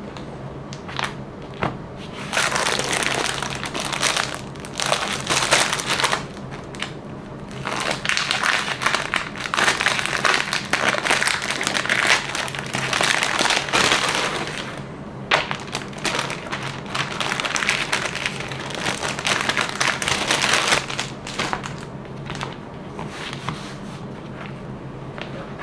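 Plastic packaging crinkling and rustling as products are unwrapped. It comes in several long stretches with short pauses between them, and a few sharp taps and clicks.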